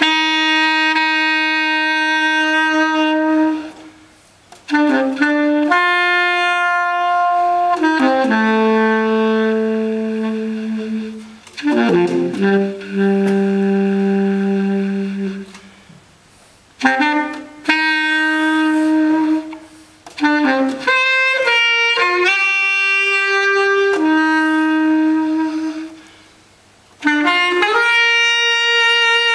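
Baritone saxophone played solo in free improvisation: a series of long held notes of a few seconds each, moving between pitches. Three short pauses break the line.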